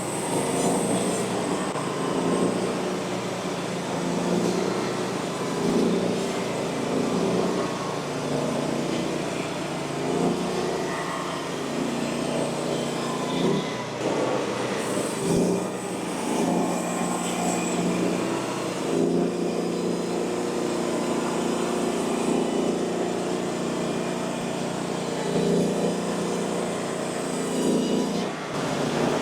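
Engine of a portable hydraulic bandsaw mill running steadily, its level swelling and easing every couple of seconds as it works.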